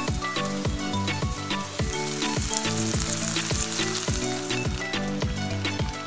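Vegetables and eggs sizzling as they fry in a pan, under background music with a steady beat.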